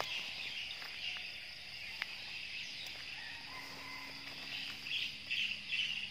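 Night insect chorus: a steady high-pitched trilling of crickets and other insects, with a few small clicks, and several louder chirping bursts near the end.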